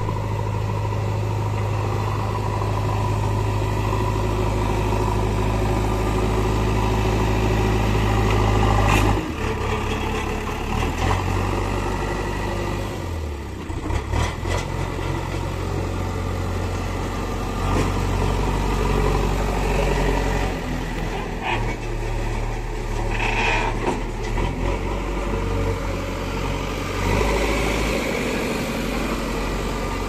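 JCB 3DX backhoe loader's diesel engine running as the machine drives and works its front loader bucket: a steady low drone that shifts in tone about nine seconds in, with a few short knocks along the way.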